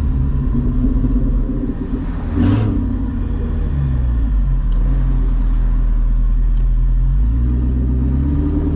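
Straight-piped C6 Corvette's LS2 V8 heard from inside the cabin, running at low revs with a low, steady exhaust note. There is a brief loud burst about two and a half seconds in. The note then sags and steps back up, louder, about seven seconds in.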